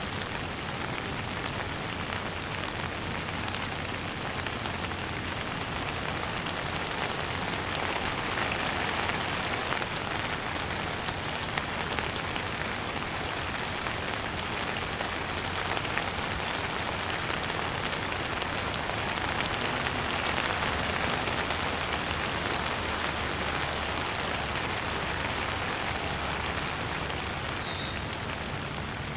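Steady rain falling on a surface: a continuous hiss of rain with many separate drop hits ticking through it, swelling slightly louder in the middle.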